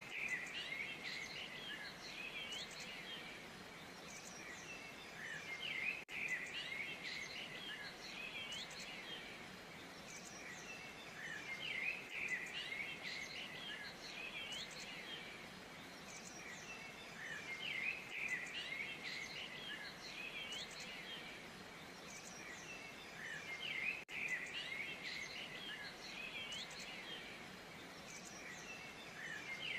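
A chorus of small birds chirping and twittering over a faint steady hiss, the same few seconds repeating about every six seconds as a loop.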